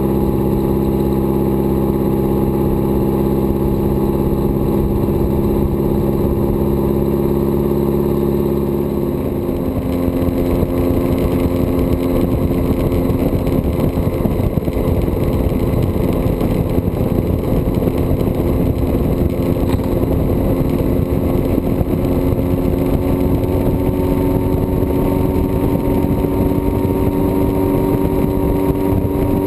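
Honda CB1100's air-cooled inline-four engine running as the motorcycle is ridden along the road. The note is steady for about nine seconds; then a rush of wind noise comes in and the engine pitch climbs slowly as the bike picks up speed.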